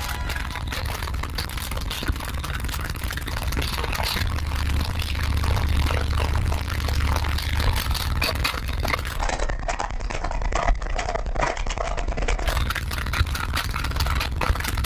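A pair of 18-inch car-audio subwoofers playing heavy bass inside the car's cabin: a steady deep rumble with constant crackling and rattling over it, slightly stronger a few seconds in.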